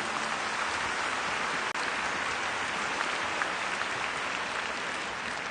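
Arena crowd applauding steadily after a figure skating program, with a brief dropout in the sound just under two seconds in.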